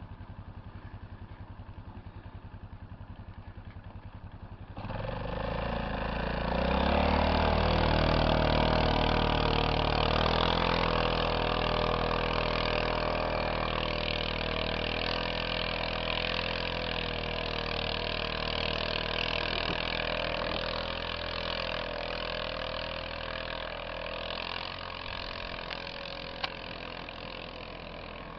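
A vehicle engine ticking over, then revving up suddenly about five seconds in, its pitch climbing for a couple of seconds. It keeps running hard under load for the rest, slowly easing off, with a hiss over it from tyres or snow.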